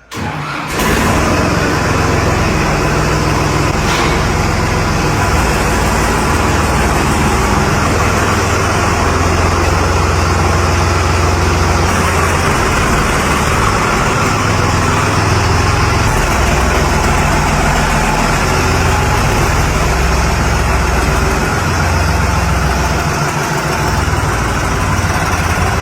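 Tractor engine running loud and steady with a deep low drone; it comes in abruptly under a second in.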